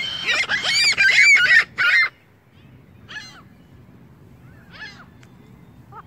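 Gulls and Canada geese calling: a loud, dense run of overlapping cries for the first two seconds, then single calls about three and five seconds in.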